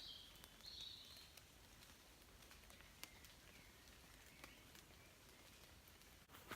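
Near silence in rainy woodland: a faint bird call of a few short high notes in the first second and a half, and scattered faint ticks of raindrops dripping.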